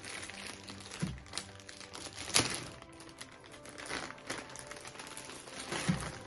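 Toy packaging being handled: rustling and crinkling with a few short knocks, the sharpest about two and a half seconds in, over quiet background music.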